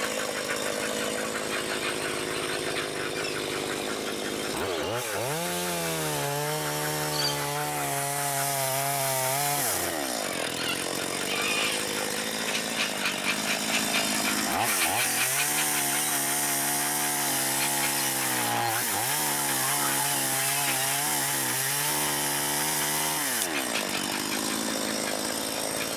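Two-stroke chainsaw cutting through a hollow dead tree trunk. It revs up to full speed about five seconds in and holds for about five seconds, then runs at full speed again for most of the later part with a short dip in the middle, idling roughly in between.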